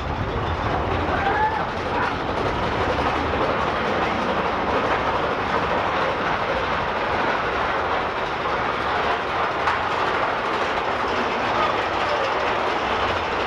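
Steady rumble and rattle of the Big Thunder Mountain Railroad mine-train roller coaster's cars running along the track, heard from aboard the train.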